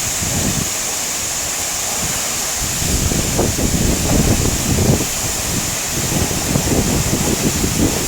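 Water of a large waterfall rushing steadily, close to the microphone, with uneven low buffeting from wind or spray on the microphone that grows stronger about three seconds in.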